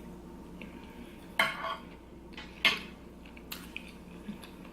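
A few light clinks of cutlery against a plate, three of them clear, about a second apart.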